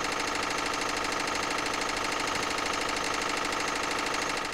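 A machine running steadily with a fast, even clatter, like an engine idling; it starts to fade right at the end.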